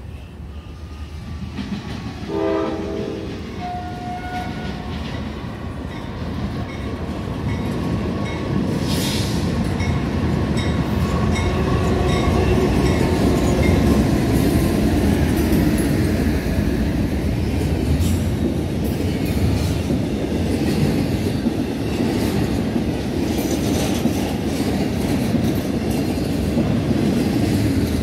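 CSX double-stack intermodal freight train passing: a short horn sounds about two seconds in, then the heavy rumble of the locomotives and stack cars rolling by builds up and stays loud and steady.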